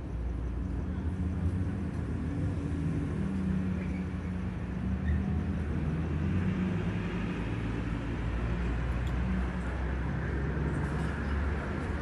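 Street traffic: a vehicle engine running with a steady low hum, with road noise growing louder near the end.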